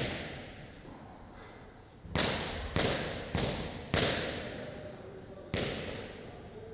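Heavy thuds ringing out in a large, echoing gym hall: four evenly spaced about two seconds in, then one more a second and a half later.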